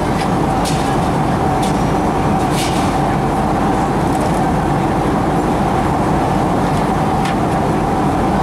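Steady cabin noise of a Boeing 767 airliner in flight: the even drone of the engines and air rushing past the fuselage, with a steady hum tone over it and a few faint clicks.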